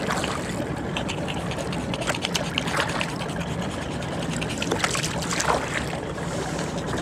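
Kayak paddle strokes: water splashing and trickling off the blades and lapping along the hull, a few sharper splashes over a steady rush.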